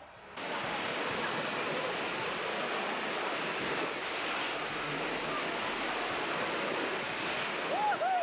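White water rushing down a rock-lined artificial tubing rapids channel: a loud, steady rush that starts suddenly about half a second in. Near the end, two short rising-and-falling calls sound over it.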